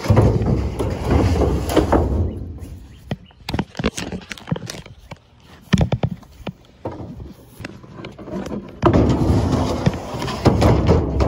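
Close rubbing and scraping as a wooden chest of drawers is handled and moved right past the microphone, in two long stretches, with scattered knocks and taps of wood between them.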